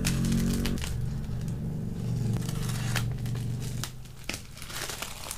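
Parcel wrapping being torn open and crinkled by hand, with irregular sharp rustles and rips.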